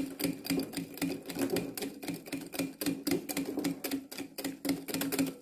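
Metal wire whisk beating egg yolks and mustard in a glass bowl, its wires clicking rapidly against the glass, several times a second, as oil is worked in to emulsify mayonnaise.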